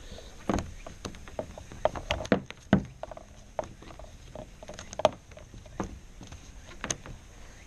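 Irregular knocks, taps and rubbing as a hand works a webbing tie-down strap against the plastic hull of a Hobie Mirage Outback kayak on a car's roof, checking the strap lies flat.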